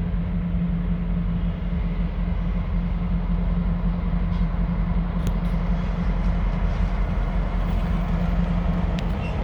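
Freight train led by EMD GP40-2LW and GP38-2W diesel locomotives passing close by with a steady, continuous low diesel drone over rail noise as it picks up speed.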